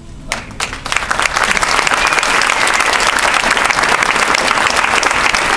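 Audience applauding: a few scattered claps about a third of a second in, filling out within a second into steady, full applause.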